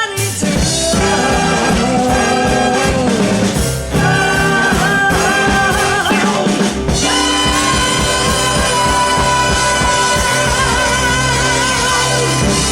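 Big band playing the closing bars of a swing tune, with brass and drum kit, then a long held final chord from about seven seconds in that cuts off at the end.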